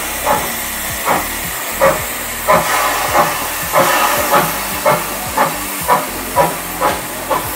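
Puffing Billy's narrow-gauge NA class steam locomotive 8A moving off slowly under steam: a steady hiss of escaping steam with regular exhaust chuffs, about two a second, coming a little quicker toward the end as it gathers pace.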